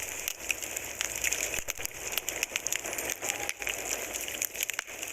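Steady crackling, rain-like hiss with many scattered sharp clicks.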